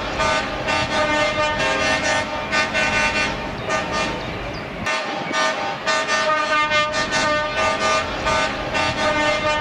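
Truck air horns sounding in repeated blasts, several horns overlapping on the same steady notes, with a brief lull about halfway through.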